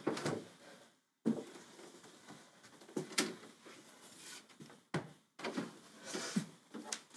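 Handling sounds in a small room: a string of knocks, clicks and rustles, as of things being picked up and set down or a cupboard or door being worked, with a sharp knock every second or two.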